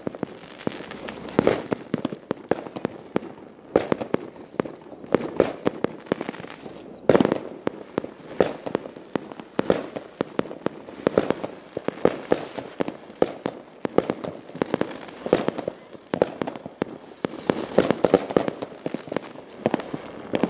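Many fireworks going off at once: a dense run of sharp bangs and crackling, with louder clusters of reports every few seconds.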